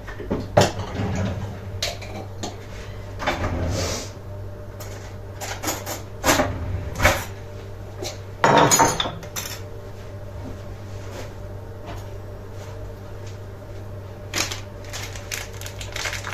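Kitchen handling sounds: dishes, containers and utensils clinking and knocking now and then while spices are being transferred into a container, with a denser rustling, scraping stretch of about a second midway, over a steady low hum.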